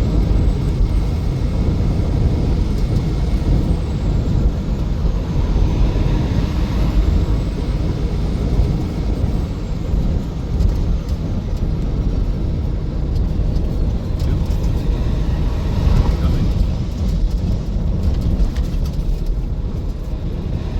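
Steady road and engine rumble heard from inside a vehicle's cabin while it drives along a highway.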